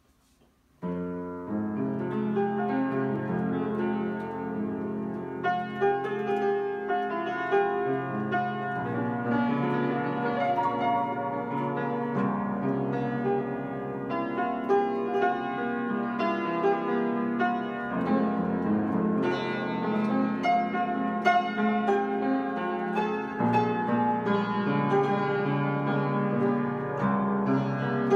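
Piano played by hand: a melody over chords, starting about a second in.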